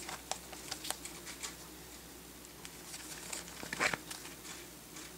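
Handling of a Louis Vuitton Alexandra leather wallet: scattered light clicks and rustling, with a louder rustle about four seconds in.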